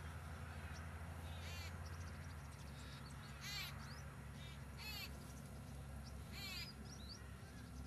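A bird calling: about four short calls, a second or more apart, over a faint steady low hum.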